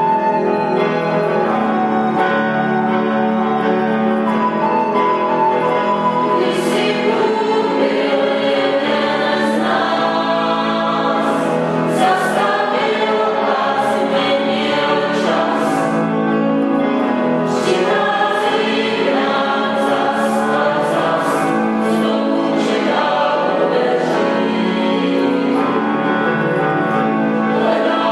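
A small church choir (schola) singing a song, recorded live in concert, with sustained sung notes.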